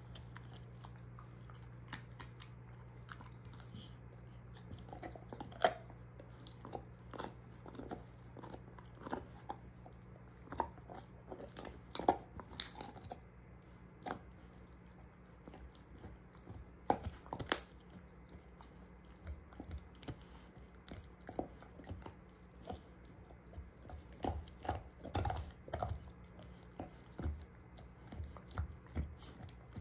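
A German shorthaired pointer gnawing on a beef soup bone: irregular crunches and clicks of teeth on bone, coming thicker near the end.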